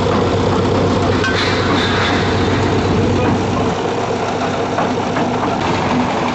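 Engine of heavy construction machinery running steadily, a constant hum with no change in speed.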